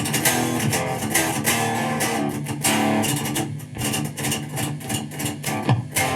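Electric guitar riffing through a Randall RG100HT amplifier, with a few short stops between chords.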